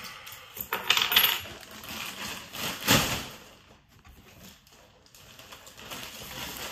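Coins clinking and clattering as they are handled and dropped, the loudest clatter about three seconds in. Near the end a plastic bag crinkles as books go into it.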